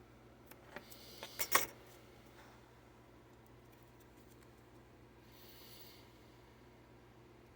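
A few light clicks and knocks from about half a second to two seconds in, the loudest about a second and a half in: cylindrical 21700 Li-ion cells being handled and set against each other. A brief soft hiss follows about five seconds in.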